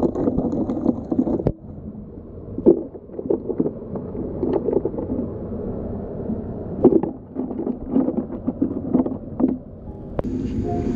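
Freshly picked mussels clicking and clattering against each other and the styrofoam cooler as a hand digs through them and lifts a handful, with short sharp knocks every second or so. A steady low outdoor rumble runs underneath.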